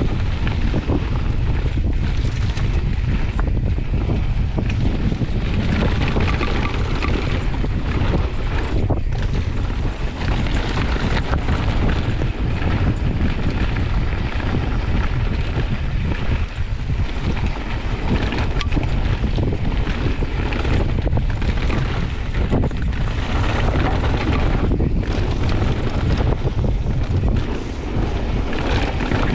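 Wind buffeting the microphone of a mountain biker's point-of-view camera on a fast downhill ride, over the steady noise of tyres rolling on a dirt and gravel trail and the bike rattling over bumps.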